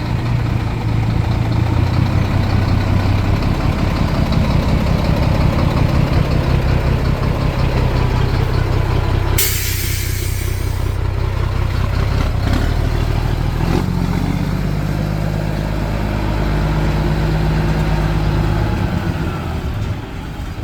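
Scania 4-series truck's diesel engine running steadily at idle, with a burst of air-brake hiss lasting about a second and a half near the middle. A few seconds later the engine note rises a little, then settles again.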